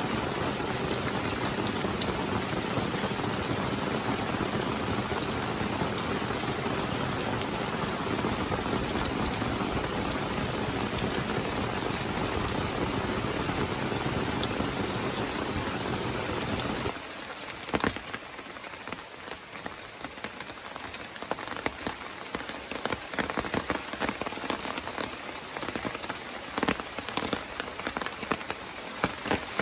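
Steady rain falling as a dense, even hiss. About two-thirds of the way in it changes abruptly to quieter rain, with separate drops heard hitting one by one.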